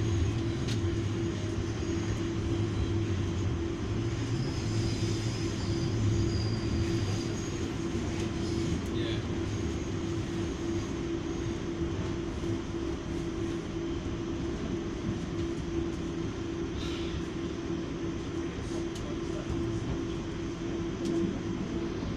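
Interior running noise of an Auckland AM-class electric multiple unit heard from inside the passenger car: a steady hum tone over a low rumble, the rumble easing after about seven seconds, with a few faint clicks.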